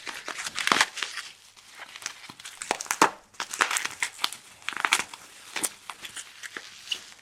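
Packaging crinkling and rustling as it is handled and rummaged through, in a run of irregular crackles.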